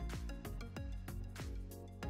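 Background music with a steady beat over held pitched tones.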